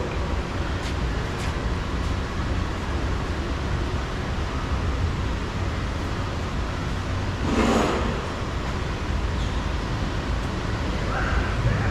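Steady low rumble of background traffic noise, with one short, louder noise burst about two-thirds of the way through.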